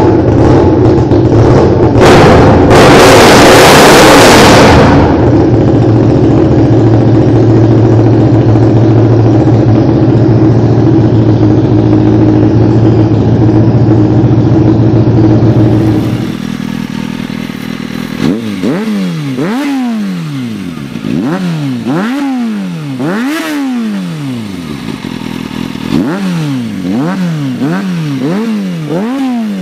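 Aprilia RSV Mille's V-twin running loud and steady, with a harsh rasping burst a few seconds in. After a cut about halfway, a 2006 Kawasaki Ninja ZX-6R inline-four with an Arrow exhaust is revved in repeated quick blips, its pitch rising and falling about once a second.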